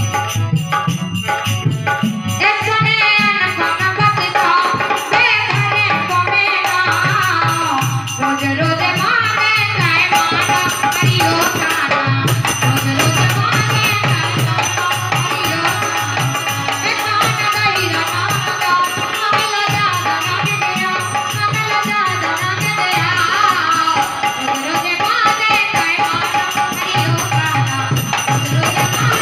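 Indian devotional folk song music (a Kartik geet): a wavering melodic line over steady hand percussion and drums.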